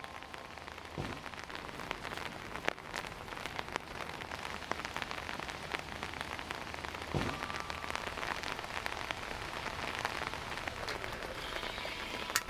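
Rain falling, with many separate drops striking close by, and one sharper tap near the end.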